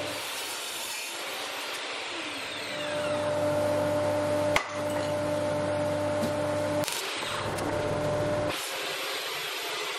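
Table saw running and crosscutting Jarrah hardwood boards to length, over the steady rush of a dust collector. A sharp knock comes about halfway through, and the sound shifts abruptly twice near the end.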